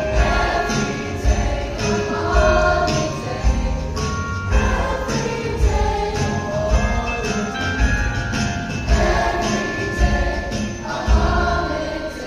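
Christmas music: a choir singing with jingle bells shaken in time over a steady beat.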